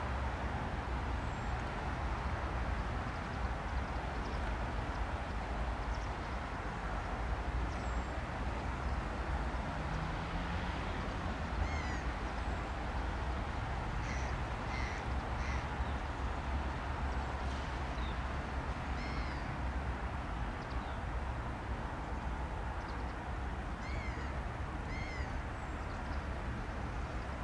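Birds calling: short harsh calls, two or three at a time, in several clusters through the second half, over a steady low rumble.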